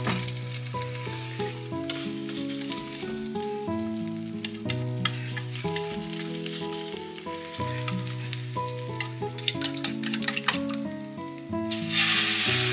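Beaten egg sizzling in an oiled frying pan while a rolled omelette is turned with chopsticks, with sharp clicks against the pan. Near the end a louder hiss as fresh egg is poured into the hot pan.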